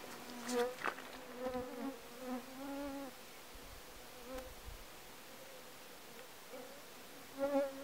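A flying insect buzzing close by, coming and going in passes with a wavering pitch, loudest near the start and again near the end.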